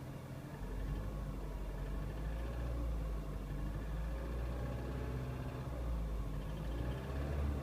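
Ford Fiesta engine running, getting louder and heavier about half a second in as it is put under throttle. It carries the annoying noise that the owner attributes to the tappets (lifters), with valve clearance measured slightly over the maximum.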